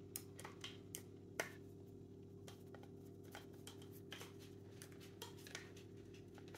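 Faint, scattered clicks and ticks of a screwdriver turning screws into an airsoft rifle's pistol grip, with the sharpest click about a second and a half in, over a steady low hum.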